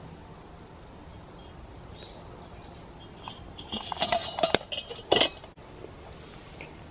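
Stainless steel pot lid clinking and clattering against the pot's rim as it is set back on, a quick run of metallic clinks a little after the middle.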